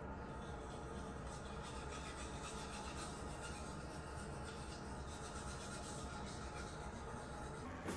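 Toothbrush scrubbing teeth in short, repeated back-and-forth strokes.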